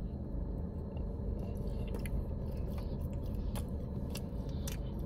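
A person chewing a mouthful of soft frosted cookie, with many small wet clicks of the mouth, over a steady low hum.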